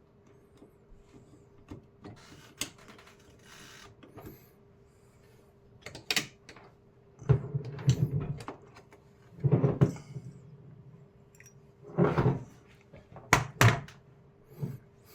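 Handling noise from taking out an old duplex wall switch with a screwdriver: small clicks and scrapes, then several bursts of knocking and rattling about halfway through and near the end.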